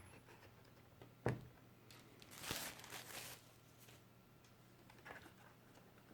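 Faint handling sounds: one sharp knock about a second in, then a rustling scrape lasting about a second, and a few soft clicks near the end.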